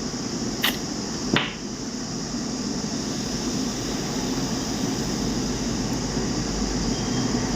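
Steady hum and hiss of a fan or air conditioner, with two short sharp clicks about two-thirds of a second apart in the first second and a half, from small handling on the work bench.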